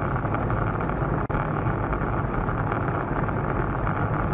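A car driving, with steady engine and road rumble picked up inside the cabin by a dashcam. The sound cuts out for an instant about a second in.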